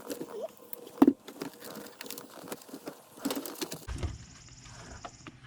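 Hands working on car interior parts with tools: scattered clicks and rustles, with one sharp click about a second in and a quick cluster of clicks a little past three seconds.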